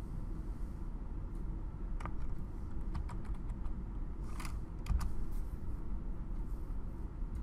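Computer keyboard keystrokes: a short run of key clicks about two to three seconds in, then a few louder clicks about four and a half to five seconds in, over a steady low background hum.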